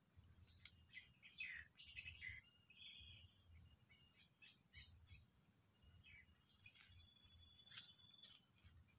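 Faint outdoor ambience: scattered short bird chirps, busiest in the first few seconds and again near the end, over a steady high-pitched whine.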